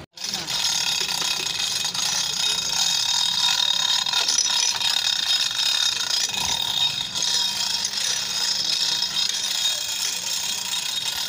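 Steady, loud mechanical ratcheting clatter that starts abruptly just after the beginning and runs on without a break.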